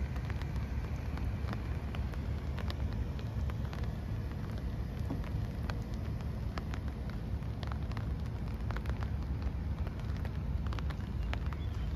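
Outdoor ambience on a walk: a steady low rumble with many scattered light ticks and taps at irregular intervals.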